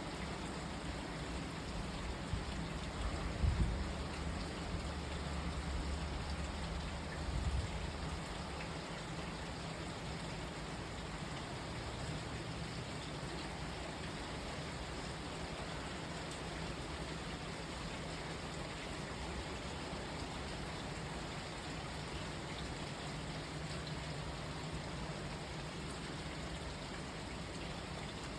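Steady rain falling, an even hiss of drops. A low rumble swells a few seconds in and dies away by about eight seconds.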